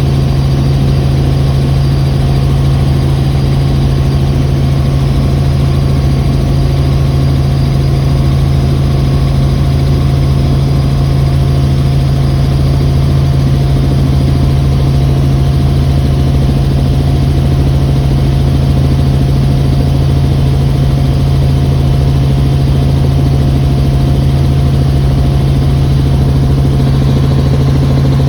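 Helicopter engine and rotor noise: a loud, steady drone with a strong low hum that holds unchanged throughout.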